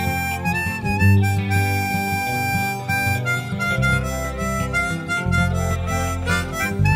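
Background music with a harmonica carrying the melody over a steady rhythm.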